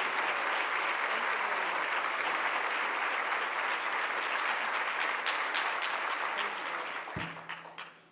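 Audience applauding steadily, then thinning to a few scattered claps and dying away near the end, with a single low thump as it fades.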